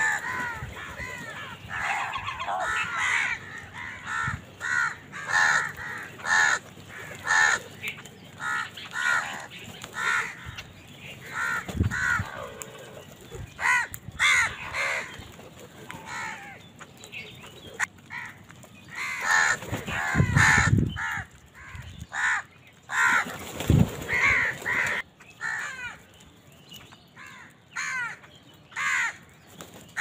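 A flock of house crows cawing over and over, short harsh calls overlapping one another as the birds compete for scattered grain.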